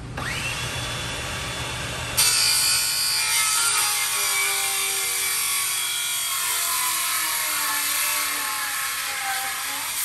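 Handheld circular saw spinning up with a rising whine, then biting into a wooden rafter board about two seconds in and cutting steadily through it. The motor's pitch slowly drops as it labours under the load of the cut.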